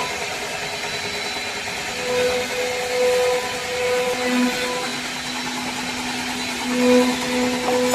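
A small electric motor running steadily with a constant hum and whir, like a power tool at work.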